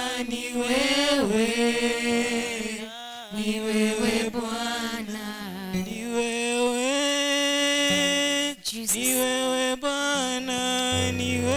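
A woman singing a slow worship song alone into a microphone, in long held notes that glide from one pitch to the next.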